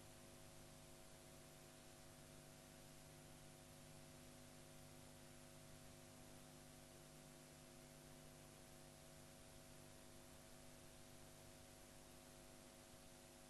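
Near silence: a faint, steady electrical hum of several fixed tones over hiss, unchanging throughout.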